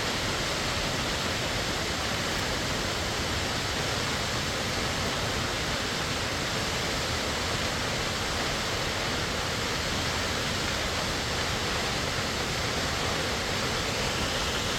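Warm Springs Falls rushing: a steady, unbroken roar of falling water.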